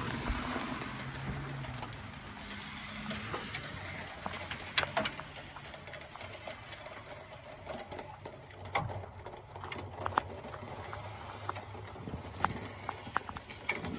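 Scattered metal clicks and knocks from someone working open the stuck hood of a 1980 Chevrolet El Camino, over a low steady hum.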